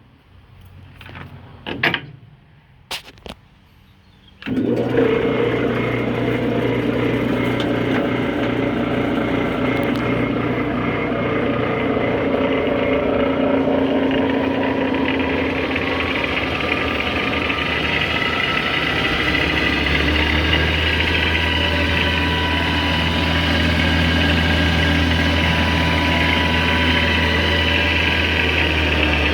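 A few clunks and clicks as the Clausing 5914 metal lathe's levers are set in back gear, then about four and a half seconds in the lathe starts and runs steadily in back gear with a gear whine and motor hum. About twenty seconds in the low hum changes and grows stronger as the running speed shifts.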